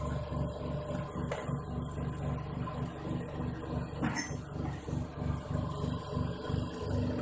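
Small feed-pellet machine driven by a 1 HP electric motor, running steadily with a low, pulsing hum. A short sharp noise cuts in about four seconds in.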